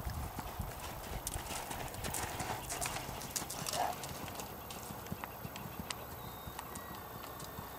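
Hoofbeats of a Belgian Warmblood gelding moving under saddle on sand arena footing: a run of irregular thuds and ticks, busier in the first half.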